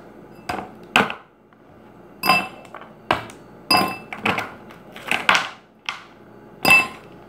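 Ice cubes being popped out of a plastic ice-cube tray and dropped into a glass: about a dozen irregular sharp clinks and clacks, several with a brief glassy ring.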